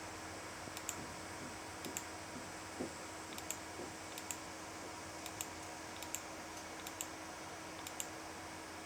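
Faint sharp clicks, often in quick pairs, about one a second, over a steady background hiss and hum.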